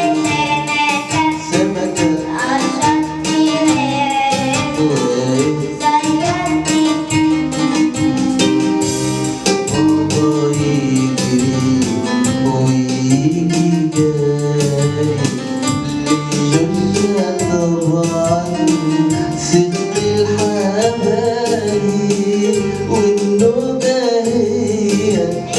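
A song with singing over instrumental backing and a steady beat.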